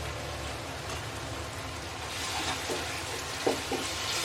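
Onion-tomato masala frying in oil and ghee in a kadai, a steady sizzle that grows louder about two seconds in, with two short knocks near the end.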